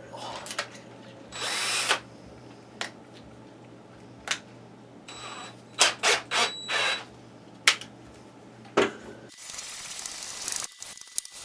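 Power drill driving a thread tap into a drilled hole in short bursts of a second or less, with sharp clicks between, then a longer run of about two seconds near the end.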